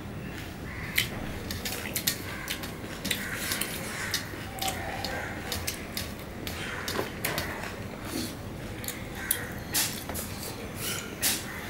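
Close-up eating sounds: wet chewing and lip smacks of mashed pomelo pulp, with fingers scraping and tapping on a steel plate, heard as many sharp clicks.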